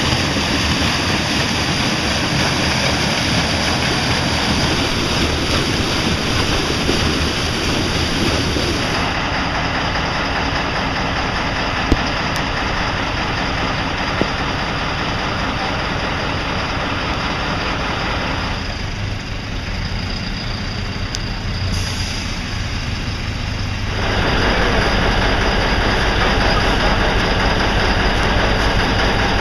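Muddy floodwater rushing down a roadside ditch, then truck engines idling. Near the end a heavy truck engine's low rumble grows louder.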